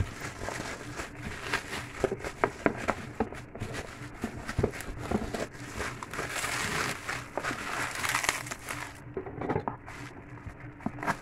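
Bubble wrap being handled and pulled off a cardboard box, crinkling with many small sharp crackles, denser for a few seconds past the middle.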